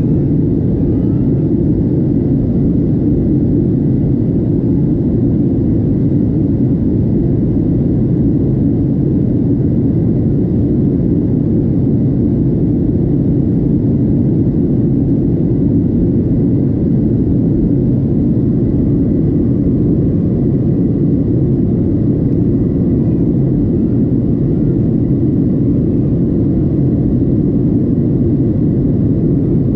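Steady in-cabin noise of a Boeing 737-700 airliner in flight: a constant low rush of airflow and CFM56-7B engine noise, with a faint steady high tone above it.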